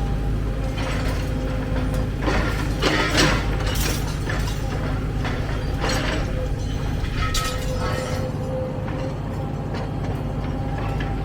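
Heavy excavator working: steady diesel engine rumble with a held tone over it, broken every second or two by metallic clanks and rattles, the loudest cluster about three seconds in.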